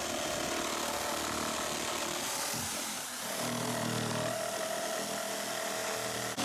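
Corded electric jigsaw cutting through OSB board, the motor running steadily with the blade sawing, easing briefly about three seconds in.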